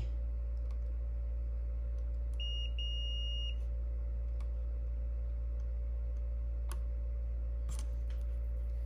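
Digital multimeter's continuity beeper sounding once for about a second, about two and a half seconds in, as the probes touch the board: the sign of a closed circuit between the probed points. A steady low hum runs underneath, with a couple of faint probe clicks near the end.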